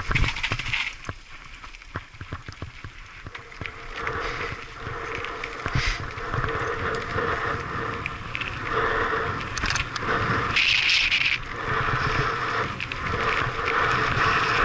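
Mountain bike rolling down a loose gravel track, heard from a helmet-mounted action camera: tyres crunching on the gravel with frequent clicks and rattles over bumps, and wind on the microphone. It gets louder after the first few seconds as speed builds.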